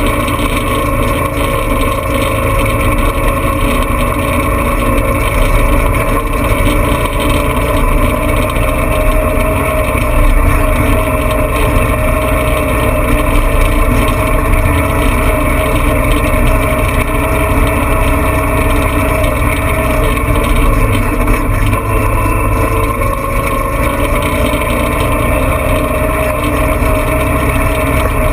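Off-road vehicle's engine running at a steady, even speed while driving a rough dirt track, its pitch wavering only slightly, over a constant low rumble.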